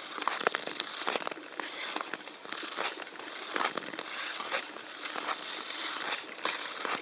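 Ice skate blades hissing and scraping across clear black lake ice, with many sharp crackles and clicks scattered through.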